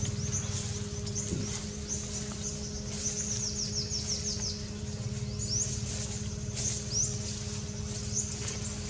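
Small birds chirping, with quick high trills and short rising chirps, over a steady low hum.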